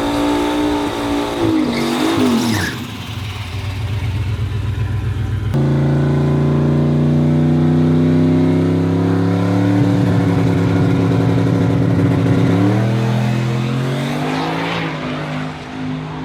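Drag car engines at full song in several cut-together clips: a falling note at first, then one engine holding a loud, slowly climbing note for about seven seconds before it drops, and a car sweeping past near the end.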